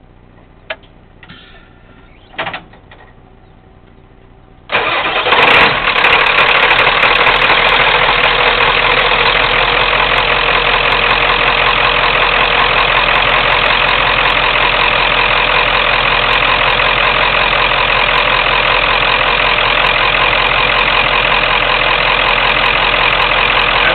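A few sharp clicks, then a Ford Power Stroke diesel engine cranks and fires about five seconds in and settles into a loud, steady idle. It is a start after the truck has been sitting: the idle runs rough at first and smooths out some seconds later.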